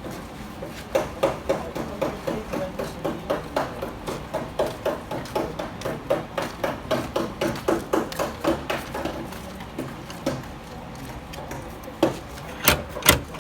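Body hammer tapping out a dent in a Kia Sportage's sheet-steel body panel. Light, even taps come about three a second, then a few heavier blows near the end.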